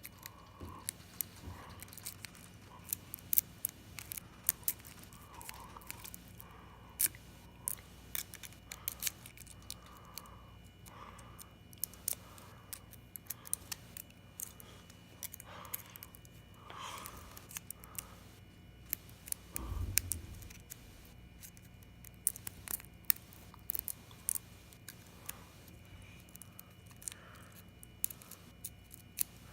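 Lock pick and tension wrench working in a bicycle padlock: irregular small metallic clicks and scrapes. A low thump about twenty seconds in.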